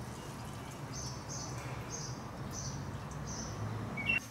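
A small bird chirping, short high chirps repeating about every half second to second, over a faint low steady hum.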